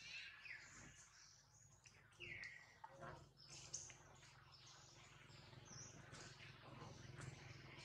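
Faint, scattered bird chirps over near silence, one short call falling in pitch a couple of seconds in. A low, steady hum comes in about three seconds in.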